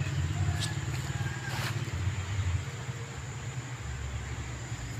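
Steady low rumble of distant road traffic, with two brief rustles of dry leaf litter about half a second and a second and a half in.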